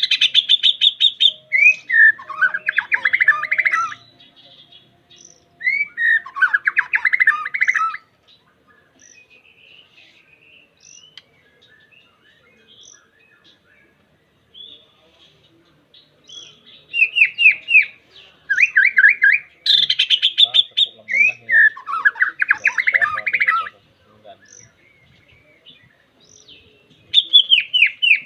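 White-rumped shama singing a challenging song aimed at a rival: loud phrases of fast repeated notes and trills that come in bursts of a few seconds, the longest running about seven seconds, with quieter gaps of faint calls between them.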